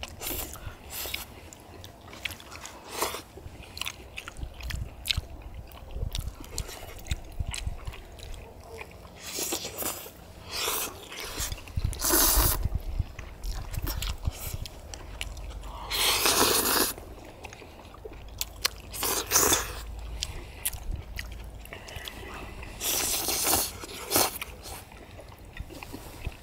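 Close-miked eating of jjajang tteokbokki: chewing, lip-smacking and small clicks of chewy rice cakes and pork, broken by several longer slurps of black-bean-sauce noodles from about a third of the way in.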